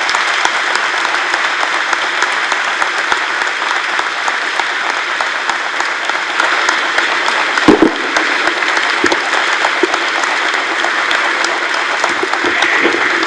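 Audience applauding steadily, a dense patter of many hands clapping, with a single louder thump about eight seconds in. The applause breaks off abruptly at the end.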